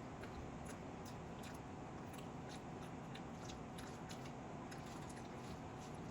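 A person eating chicken biryani: faint chewing with small, irregular clicks of the mouth, several a second, over a steady background hiss.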